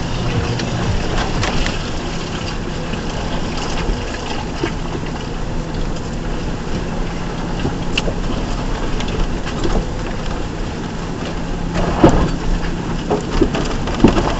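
Stock 2004 Ford Ranger pickup driving over a rough off-road trail: the engine runs steadily under the noise of tyres and body working over uneven ground. Near the end come two sharp knocks a couple of seconds apart.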